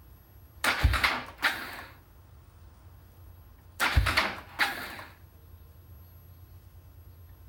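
KTM 690's single-cylinder engine being cranked to start: two short tries, each about a second and a half of cranking and sputtering, that die away without the engine catching. It is a hard start.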